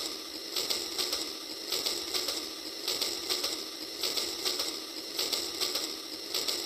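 Battery-powered toy train running along its track, its small geared motor and wheels making a steady rattling with quick, uneven clicks.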